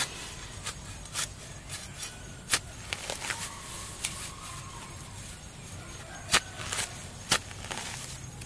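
Hand hoe chopping into grassy soil: sharp, irregularly spaced strikes of the blade, the loudest about two and a half, six and seven seconds in.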